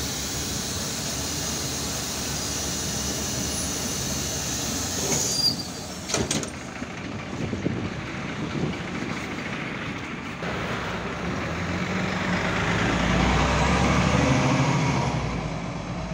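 Interior running noise of an Irisbus Citelis 12 m city bus: a steady hiss, then a short burst and a few sharp knocks about six seconds in, then the engine note swelling and peaking over a few seconds as the bus picks up speed, easing off near the end.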